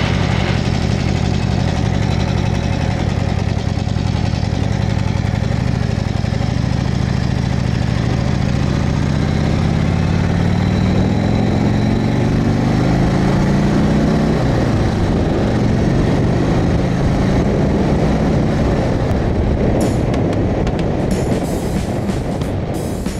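1985 Harley-Davidson Sportster 1000 Ironhead's air-cooled V-twin running under way, rising steadily in pitch as it pulls, dropping suddenly about fourteen seconds in at a gear change, then climbing again, with wind rush over it.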